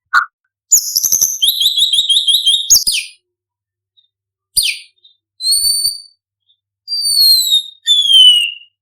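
White-rumped shama singing: a fast run of repeated chipping notes, then a quick downward sweep, followed by clear whistled notes, the last two gliding down in pitch.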